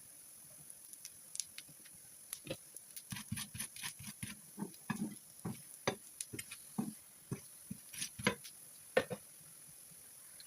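Irregular soft taps, knocks and squelchy handling sounds of food preparation, bunched through the middle of the stretch.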